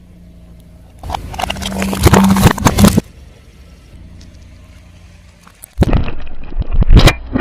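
Car tyre rolling over and crushing crunchy objects: a dense stretch of crackling and snapping about a second in, and another run of sharp cracks near the end, over the low hum of the car's engine.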